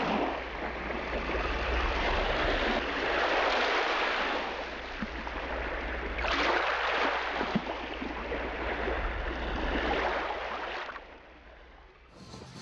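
Water rushing along the hull of a motorized river boat under way, swelling and easing every few seconds over a steady low rumble. The sound drops away sharply about a second before the end.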